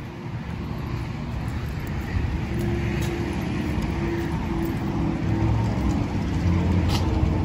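A motor vehicle's engine running nearby, a low hum that grows louder over the seconds, with a single sharp click near the end.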